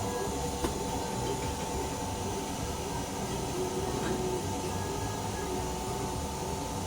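Car engine running steadily with a hiss over a low rumble and a constant whine, as when an engine is left running for a blow-by test. A single light tick about two-thirds of a second in.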